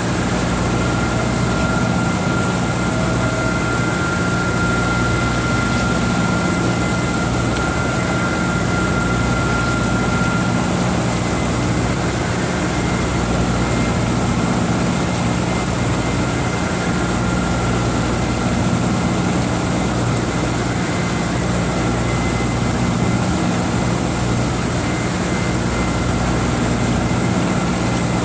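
Skoda W 200 HB CNC ram-type floor borer milling metal: the steady noise of the cutter and spindle with a low hum and a faint high whine that comes and goes.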